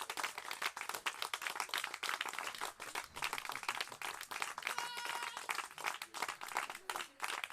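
Audience applauding at the end of a song, a dense irregular clapping, with one short high-pitched call about five seconds in.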